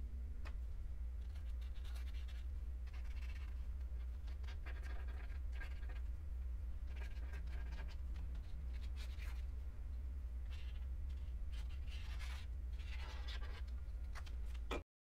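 A drawing tool scratching and rubbing on paper in short, irregular strokes, over a steady low hum. All sound cuts off abruptly just before the end.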